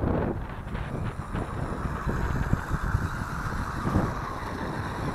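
Wind buffeting the microphone, strongest at the start, over the whine of an MJX Hyper Go 1/14 RC car's small brushless electric motor driving on grass.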